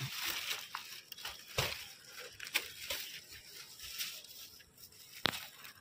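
Soft rustling and crinkling from things being handled right by the microphone, with scattered small clicks and one sharper click near the end.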